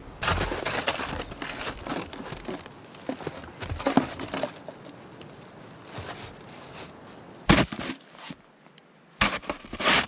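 Plastic snow shovel crunching and scraping through packed snow and over conifer boughs, with a few sharp knocks; the loudest knock comes about seven and a half seconds in, and a short cluster of knocks near the end.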